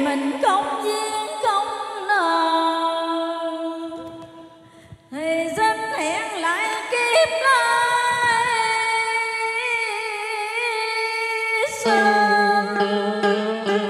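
A woman singing a Vietnamese cải lương vocal line through a microphone and PA, holding long notes with a wide, wavering vibrato. Her voice fades away about four seconds in and she comes back in a second later.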